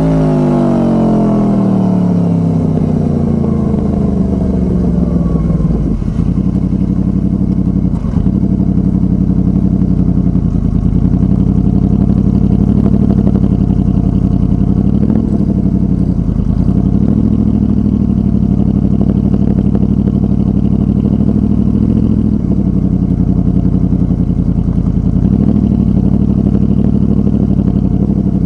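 Honda VFR800 Interceptor's V4 engine running through a Two Brothers Racing exhaust. Its pitch falls over the first few seconds, breaks briefly twice, then holds steady with small rises and falls in pitch as the throttle is worked.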